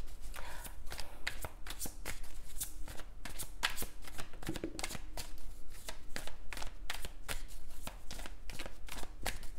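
A tarot deck being shuffled and handled, a dense run of quick, irregular card flicks and clicks.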